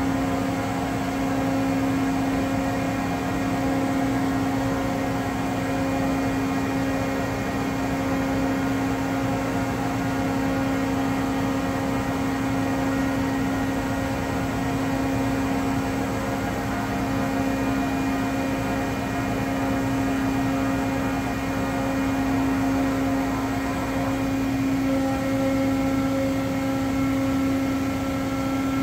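Doosan DCM 2740 CNC bridge mill running, a steady machine hum with one strong low tone and several fainter higher ones. About 25 seconds in the mix shifts and a higher tone joins in, as the spindle head moves.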